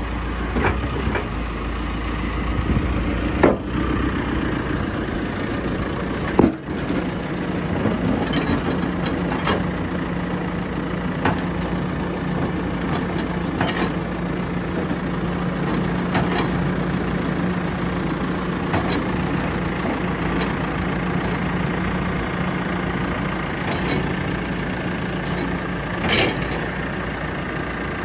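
JCB 3CX backhoe loader's diesel engine running steadily, with a few sharp knocks and clunks. A steady low hum joins about seven seconds in and drops away shortly before a last knock near the end.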